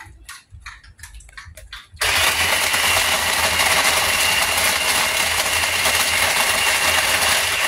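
Electric shaved-ice machine running, its motor and blade grinding ice while the top is pressed down. It starts suddenly about two seconds in, after a few light knocks, runs steadily with a low hum and a high whine, and cuts off near the end.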